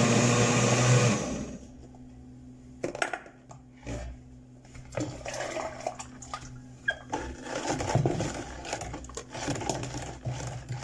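Countertop blender running on strawberries, cutting off about a second in. Then scattered knocks and clinks as the blender jar and a metal utensil touch a plastic bucket while the purée is poured in and stirred.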